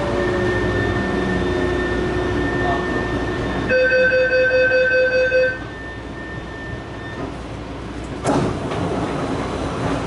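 Matra VAL 256 metro train's traction inverter whine falling in pitch as the train slows, a whine called abnormal inverter noise. About four seconds in, a loud rapid beeping for about two seconds, like a door warning chime, then a sudden clunk about eight seconds in.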